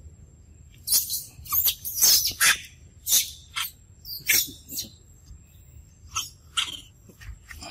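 A rapid series of short, high-pitched animal calls, about a dozen of them, starting about a second in and dying away near the end.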